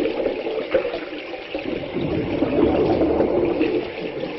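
Liquid flowing through a pipe: a continuous rushing, bubbling water sound that eases briefly about a second in.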